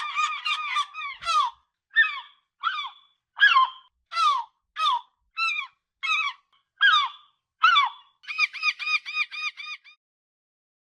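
Gulls calling: a fast run of calls, then about ten separate, falling, high calls spaced under a second apart, then a quick chattering run of short calls that stops shortly before the end.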